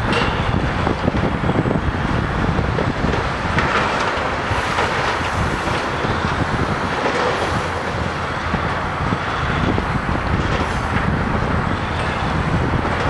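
Diesel engine of a Link-Belt LS-518 crawler crane working a demolition clamshell bucket, heard over steady highway traffic noise and wind buffeting the microphone.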